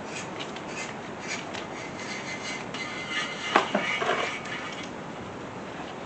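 Thread-chasing tap being turned by hand in the head-bolt holes of a small-block Chevy 350 block: light metallic ticking and scraping, with a brief clatter of metal about three and a half seconds in. The threads give no resistance, so the tap runs freely.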